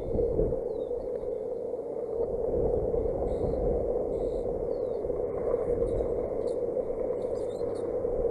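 Wind buffeting the nest-cam microphone: a steady rushing with a gusty low rumble that rises and falls. A few faint short high chirps come through now and then.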